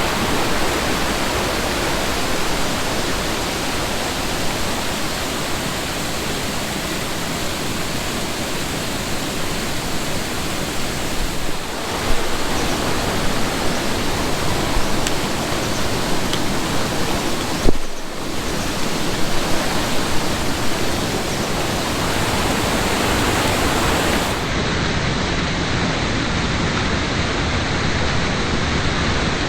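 Steady, loud rushing of a heavy-flowing waterfall. The sound changes abruptly a few times, at cuts between shots.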